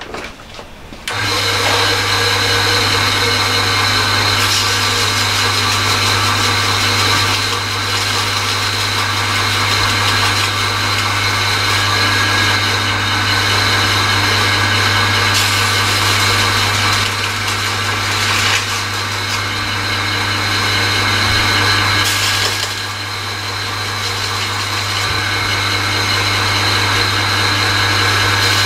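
Electric motor of a homemade slow-speed grinder switched on about a second in, then running with a steady hum, while a chipped tungsten lathe tool bit is held against the turning grinding wheel to sharpen it.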